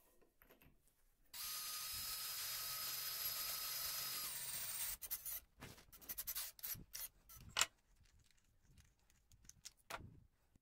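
Greenworks cordless drill running steadily for about three seconds as it drills through a small metal disc, its whine dropping a little in pitch near the end of the run. Then a series of short knocks and clatters as the drill and the metal part are handled and set down on the bench.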